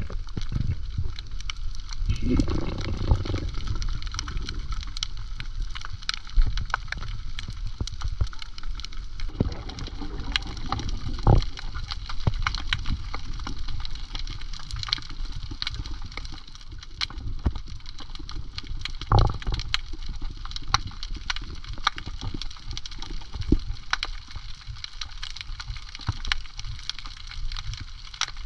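Water gurgling and sloshing over a low rumble, with many scattered sharp clicks and a louder, fuller surge of water about two to four seconds in.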